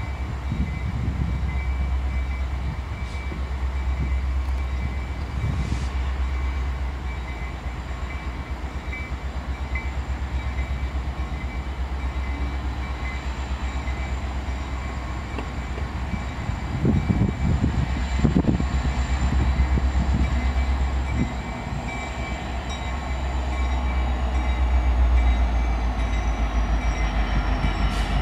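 EMD SD70 diesel locomotive's two-stroke V16 engine running with a deep steady rumble as the locomotive pulls a freight train slowly out. A thin high whine falls in pitch over the last few seconds as the unit draws past.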